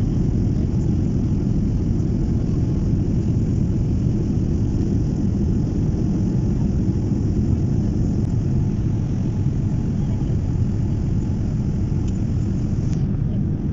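Steady low rumble of an airliner cabin in flight: jet engine and airflow noise heard from inside the passenger cabin.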